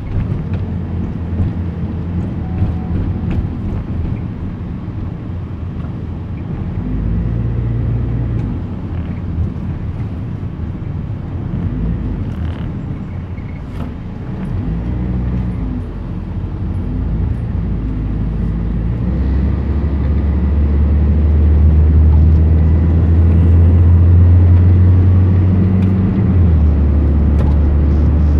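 Engine and road noise heard inside a moving car: a steady low rumble that grows louder about two-thirds of the way through as the car picks up speed on the highway.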